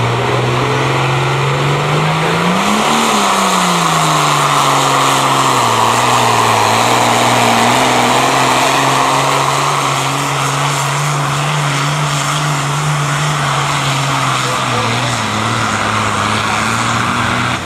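International Harvester pulling tractor's diesel engine running hard under load as it drags a weight-transfer sled. The engine note climbs sharply about three seconds in and falls back, then holds steady, and it drops lower near the end.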